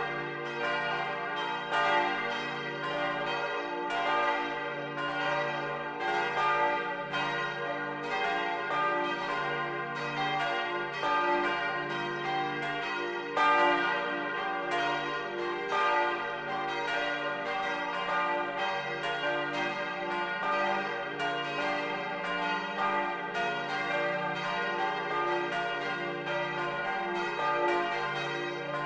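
Full peal of four bronze church bells, cast in 1950 by Junker of Brilon and tuned d', f', g' and b', swinging and ringing together, their strokes overlapping in a dense continuous clang. Heard close up from inside the bell tower.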